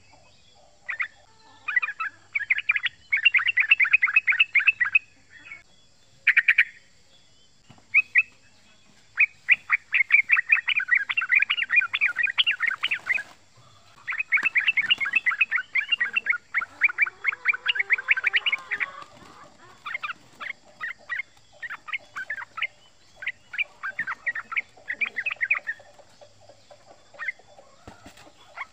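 Male yellow-vented bulbul singing its rapid rolling chatter ("ropel"): runs of fast notes, some several seconds long, broken by short pauses, with shorter bursts near the end.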